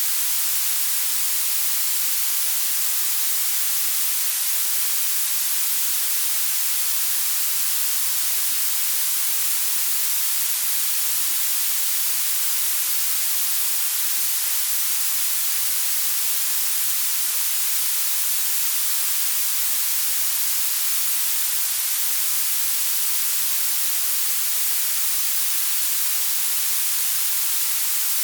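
Synthetic blue noise: a steady, unchanging hiss whose energy climbs toward the highest frequencies, with almost nothing in the bass.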